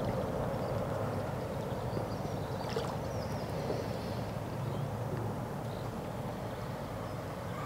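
Steady low outdoor background noise with no distinct events, and a few faint high chirps.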